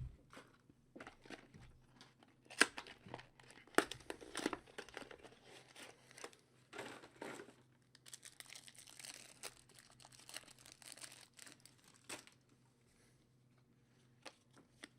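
Trading-card packs being handled and torn open: wrappers crinkling and tearing, with sharp clicks and rustles. Busy for about twelve seconds, then only a few faint clicks.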